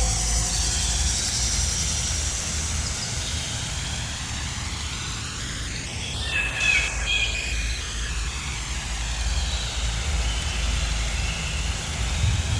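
Jungle nature ambience with a steady low rumble and hiss, given a sweeping 8D panning effect. A brief burst of bird chirps comes about six seconds in.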